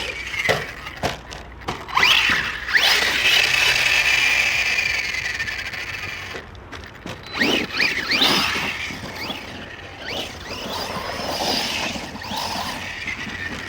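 Brushless electric motor of an Arrma Outcast 1/8-scale RC stunt truck whining, its pitch rising and falling as the throttle is pumped. There are a few sharp knocks in the first two seconds.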